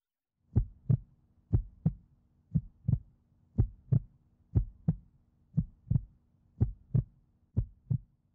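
Heartbeat sound effect: paired lub-dub thumps about once a second, eight beats, over a faint steady low hum, starting about half a second in.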